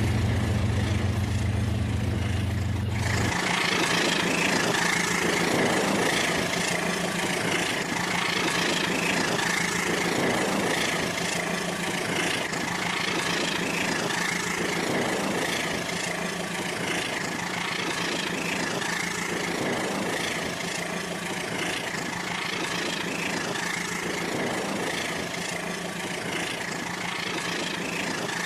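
Rail King battery-powered toy train running on its plastic track: a steady small-motor whine with a low hum, the deepest part of which stops about three seconds in, and a soft swell recurring about every two seconds.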